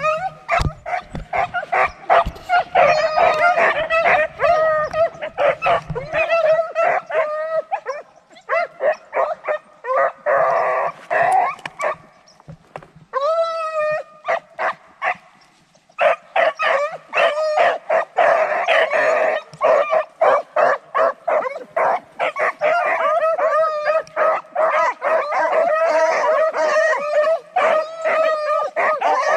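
A pack of beagles barking and baying, many voices overlapping in a continuous chorus, typical of hounds running a rabbit's track. The cries thin out for a few seconds around the middle, then the full pack picks up again.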